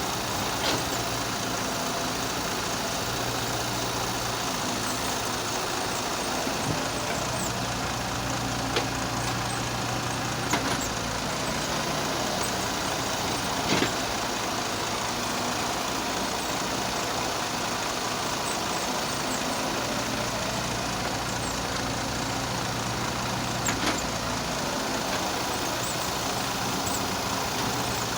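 A heavy machine's engine runs steadily at a constant pitch. Now and then there are a few short, sharp knocks.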